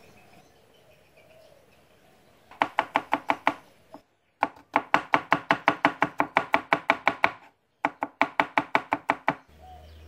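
Kitchen knife rapidly chopping garlic and shallot on a plastic cutting board: sharp knocks at about seven a second, starting about two and a half seconds in. The knocks come in three runs with two short breaks.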